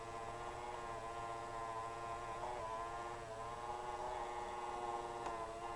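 A steady electrical hum with a buzzing edge, made of several held tones whose pitch wavers slightly a few times.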